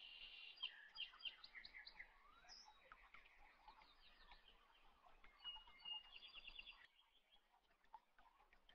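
Faint birdsong: small birds chirping, with a quick trill of repeated notes about six seconds in.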